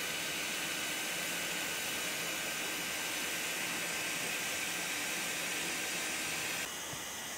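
Leister TRIAC DRIVE hot air welder blowing, a steady rushing hiss of its blower and hot air jet as it welds a roofing membrane seam; the level drops slightly near the end.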